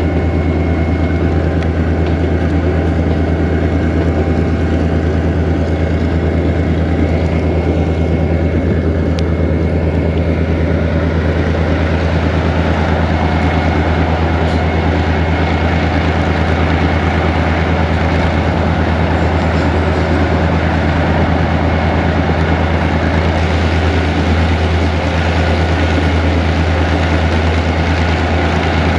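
Diesel engine of a GMU-15 diesel-electric locomotive running under load as it climbs a grade, heard from inside the cab as a steady low drone over an even hiss of running noise.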